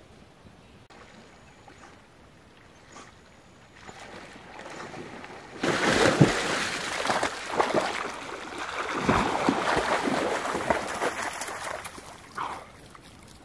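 A person swimming in a lake, water splashing with each stroke. The splashing starts suddenly about halfway through and dies down near the end.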